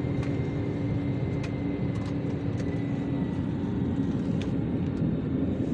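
Airliner cabin noise: a steady low rumble from the aircraft with a faint constant hum, and a few scattered small clicks and rattles.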